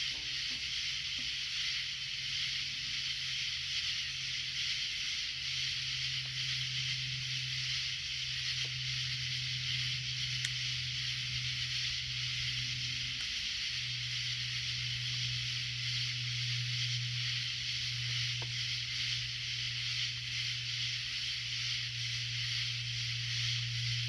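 Steady chorus of night insects: a continuous high buzzing hiss, over a low steady hum.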